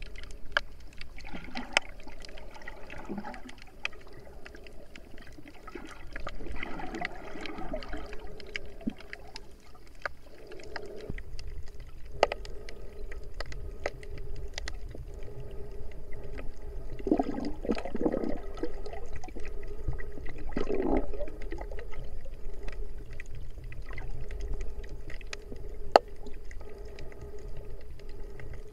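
Underwater sound picked up by an action camera in its waterproof housing: muffled water movement that swells several times, scattered sharp clicks, and a faint steady hum.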